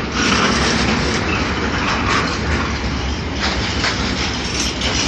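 Freight train of intermodal container flat wagons, partly empty, rolling past: a steady rumble and rolling noise of steel wheels on rail, with a couple of sharp clacks a little past halfway as wheels cross rail joints.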